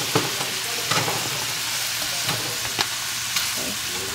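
Shrimp frying in oil in a sauté pan, a steady sizzle, with several short clicks of a fork against the pan as the shrimp are lifted out.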